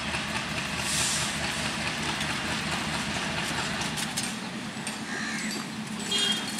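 WDM-3A diesel-electric locomotive's ALCO engine running with a steady low hum as the train rolls slowly in.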